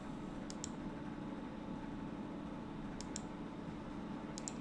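Three pairs of sharp clicks at a computer, each pair a quick double click, over a steady low hum.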